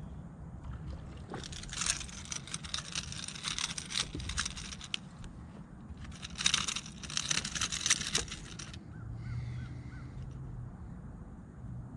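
Two bursts of splashing and rattling, each two to three seconds long, as a small spotted bass is brought in and landed, over steady wind rumble. A short low hum follows near the end.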